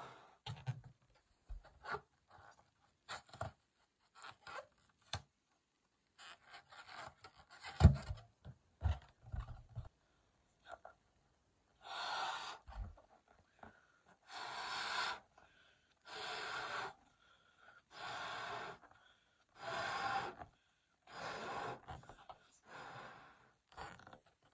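A latex party balloon being blown up by mouth: about seven long puffs of breath, each about a second, with quick breaths drawn in between. Before that come handling knocks and clicks, with a loud thump about eight seconds in.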